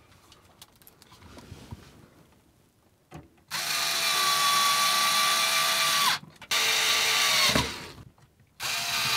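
Cordless drill-driver driving screws through a rooflight's plastic inner trim panel into the ceiling, running in three goes: about two and a half seconds starting around a third of the way in, a shorter run that winds down in pitch as it stops, and a third starting near the end. Faint handling clicks come before the first run.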